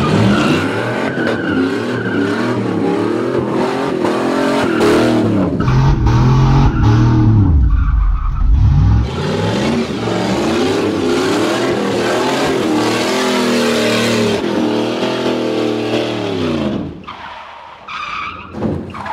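Jeep DJ-5 postal truck's swapped Dodge 318 V8 revving hard through donuts, its pitch swinging up and down again and again, with the rear tires squealing as they spin. The engine eases off near the end.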